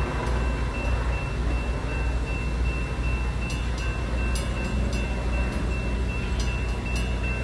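Steady low rumble of an approaching Trinity Railway Express commuter train at an active railroad crossing, with a faint steady high tone and a few sharp clicks in the second half.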